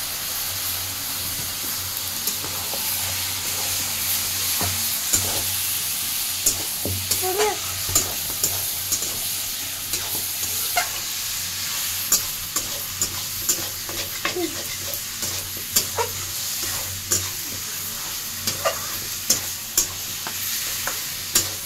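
Pieces of meat frying in a steel kadhai, sizzling steadily, while a metal spatula stirs them with sharp clinks and scrapes against the pan, growing more frequent after the first few seconds.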